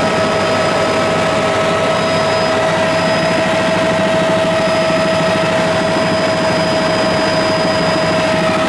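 Light aircraft's engine and spinning blades heard from inside the cabin: a loud, steady drone with a constant whine running through it.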